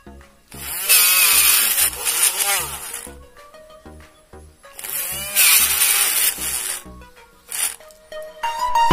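Homemade mini drill, a small DC motor with a bit on its shaft, drilling into a white plastic strip in two bursts of about two seconds each, about a second in and about five seconds in, its whine sliding up and down in pitch as the bit bites. Background music with a steady beat plays throughout.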